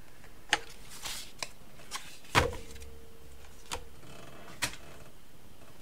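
Sheets of coloured card being handled: a soft swish of card sliding over card and a few sharp taps as sheets are laid down. The loudest tap comes about two and a half seconds in, followed by a short ringing hum.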